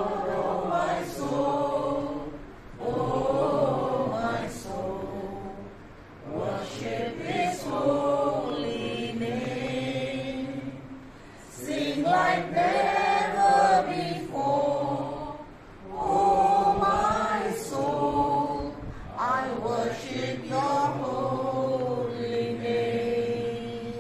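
A group of mixed voices singing a song together from song sheets, in long held phrases with short pauses for breath every few seconds.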